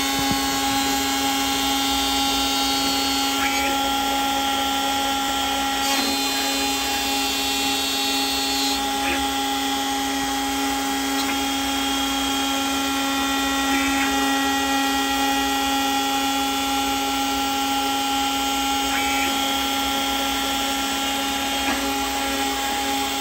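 CNC mill spindle running with a small end mill cutting aluminium plate: a steady machining whine with several constant tones, and a few brief chirps along the way.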